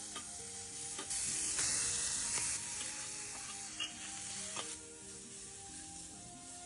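A steady sizzling hiss of food cooking, under soft background music with held notes, and a few sharp clicks scattered through.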